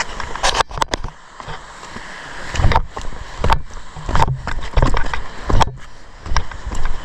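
Footsteps at a walking pace, a heavy thud about every 0.7 s, over a steady rushing background noise.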